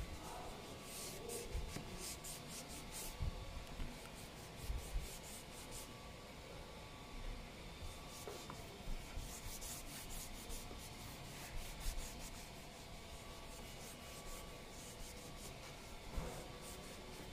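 Microfibre cloth rubbing back and forth over a car's plastic door handle, in bursts of quick strokes, wiping on a cleaner to strip old silicone residue. A few soft thumps come through between strokes.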